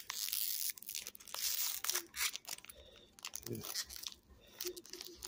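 A Topps 2023 Heritage baseball card pack being torn open close to the microphone: the printed wrapper tears and crinkles in irregular crackles as it is peeled back from the cards.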